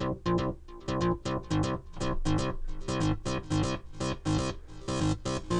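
Access Virus virtual-analogue synthesizer playing a fast sequence of short, plucky repeated notes while its filter cutoff knob is turned up. The notes grow steadily brighter as the filter opens.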